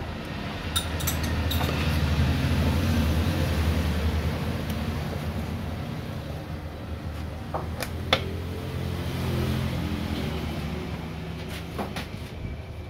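A low, steady rumble that swells over the first couple of seconds, slowly fades, and comes up again briefly later, with a few light knocks and taps of a plastic cup being handled.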